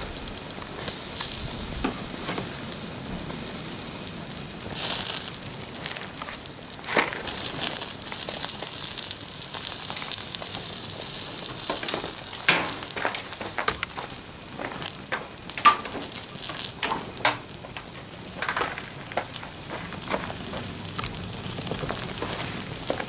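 Burning plastic Lego TIE fighter model: the flames crackle and sizzle steadily, with many sharp pops scattered throughout.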